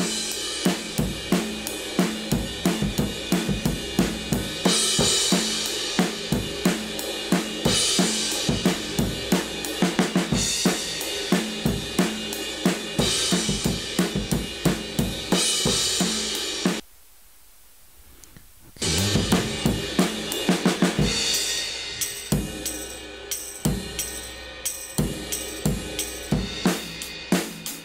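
A recorded drum kit beat with kick, snare, hi-hats and cymbals, played back through a compressor plugin. About two-thirds of the way through it drops out for about two seconds, then starts again.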